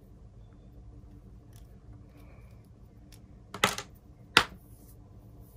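Handling noise as headphones and their cable are picked up and moved on a table: faint room tone, then a quick pair of sharp clicks about three and a half seconds in and one sharper click about a second later.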